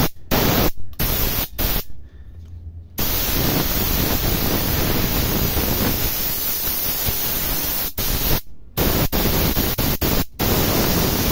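Compressed air hissing out of a gravity-feed spray gun run off a Truper COMP-KIT25 compressor as the trigger is pulled: a few short blasts, then one long blast of about five seconds starting about three seconds in, then two more short ones. The gun is being test-fired with air only to check that the new kit works.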